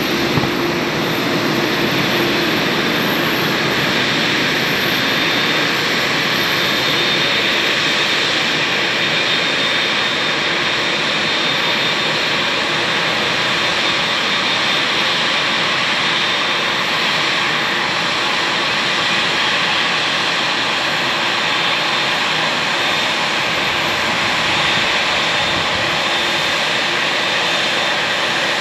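Twin GE GEnx turbofans of a Boeing 787-9 at taxi power: a steady jet whine with a thin high tone over a broad rush, holding an even level as the airliner taxis.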